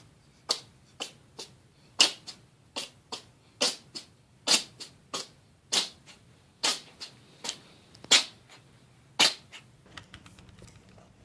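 A small animal sneezing over and over in short, sharp puffs, about eighteen in quick succession at uneven spacing.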